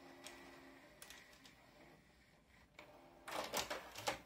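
Tape mechanism of an opened Panasonic VCR with a cassette loaded: a short, faint motor hum and scattered mechanical clicks, then a run of loud clattering near the end.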